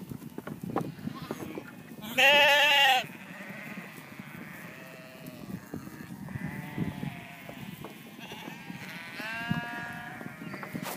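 A large crowded flock of ewes and lambs bleating. One loud, wavering bleat comes about two seconds in, and fainter bleats follow around seven and ten seconds. Beneath them runs the constant low shuffle and clatter of the packed flock moving.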